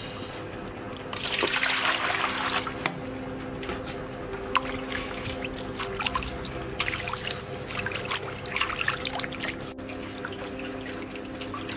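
Water poured into a stainless steel bowl for a second or two, then splashing and sloshing as hands wash a slab of raw pork belly in it.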